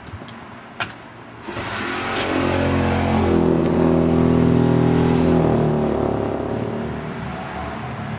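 A motor vehicle's engine passing by, swelling up a second or two in, loudest in the middle and then fading.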